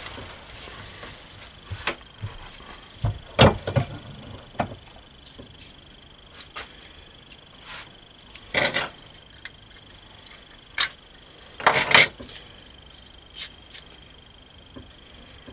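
Metal clanks and clinks at a steel bench vise as a steel bracket bar, with two nuts as formers, is squeezed to bend a kink into it and then taken out and handled. A handful of separate sharp metallic knocks, the loudest a few seconds in and a cluster in the second half.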